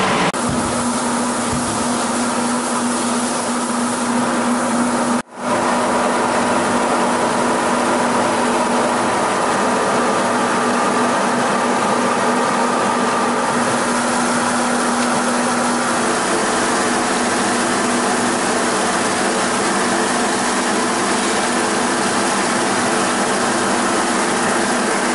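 Kronen GEWA 2600V vegetable washing machine running: a steady motor and pump hum under a dense rush of churning, splashing water. The sound breaks off for a moment about five seconds in.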